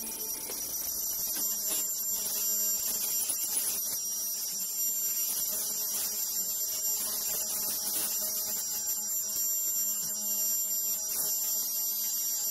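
Shoe-cover making machine running steadily: a constant hum with a high-pitched whine on top.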